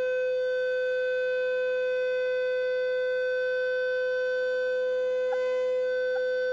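Loudspeaker blasting a loud, steady tone at about 500 Hz, the resonant frequency of the wine glass set in front of it, to shake the glass until it shatters. The tone holds one pitch with overtones above it, and the glass does not break.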